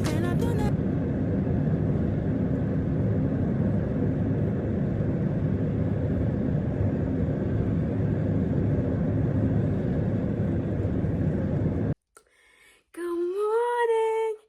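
Steady road and engine noise of a car being driven. It cuts off suddenly about twelve seconds in, and a short call that rises and then holds follows near the end.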